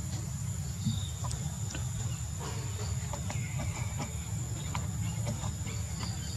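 Outdoor ambience: a steady high-pitched insect drone over a low rumble, with scattered faint clicks and a few short chirps.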